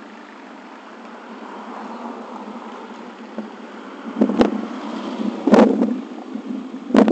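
Road traffic passing at a roadside. Three short, loud rumbling bursts of wind buffet the microphone about four, five and a half and seven seconds in.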